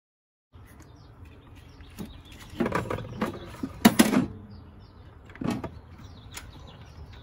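Hands handling an A/C refrigerant hose and its fitting among the engine-bay wiring: rustling with a series of clicks and knocks, the loudest about four seconds in, over a low steady background noise.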